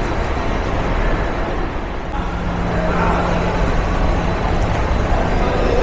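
Steady low rumble of a large airport terminal hall, with a low steady hum from about two seconds in to about five seconds in and faint distant voices.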